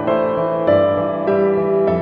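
Background music: a soft piano melody with sustained chords, notes changing about every half second.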